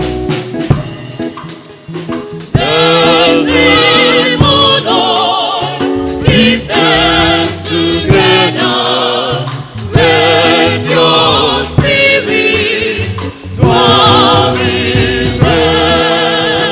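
Church choir singing the congregation's response to a petition, after a short instrumental lead-in, with band accompaniment. The sung phrases come in from about two and a half seconds in, with a wavering vibrato on the held notes.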